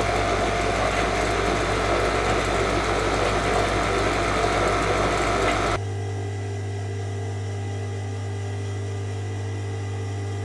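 Kingtex industrial overlock (serger) machine stitching at speed, a loud, dense whirring rattle that stops suddenly about six seconds in. After that only a steady motor hum remains.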